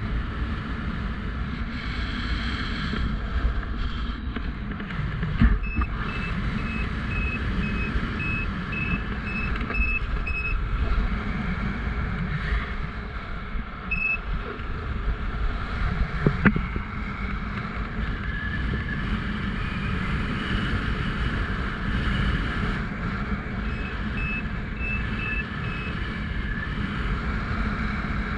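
Strong wind rumbling on the microphone in flight, with a paragliding variometer giving runs of short, evenly spaced high beeps that signal rising air; the beeps come in a run early on, once more midway and again near the end. Two sharp knocks break in along the way.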